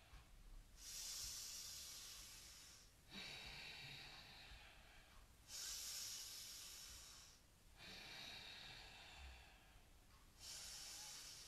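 Slow, deliberate "Darth Vader breathing" through the nose: about five long, faint, hissing breaths of roughly two seconds each, in and out in turn, with short pauses between them.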